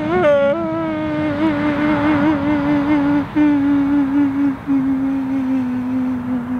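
A man wailing in a long, drawn-out cry that wavers at first and then holds and slowly sinks in pitch, broken twice by short catches of breath.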